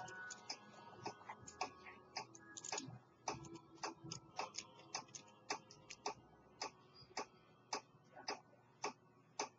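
Steady clock-like ticking, about three to four sharp ticks a second, with faint steady tones fading under it during the first few seconds.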